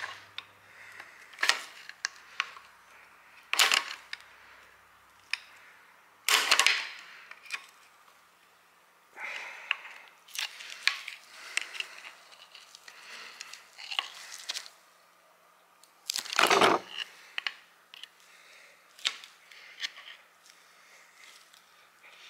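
Steel tools clinking, knocking and scraping against the valve springs and keepers in the valve chamber of a Ford flathead V8 block, in irregular sharp strikes. The loudest comes about three-quarters of the way through. This is the work of prying out seized valve spring clips.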